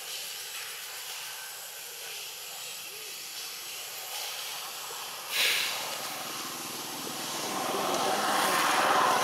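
Engine of a passing motor vehicle, swelling in the last few seconds and starting to fade, over a steady outdoor hiss. A brief sharp hiss about five seconds in.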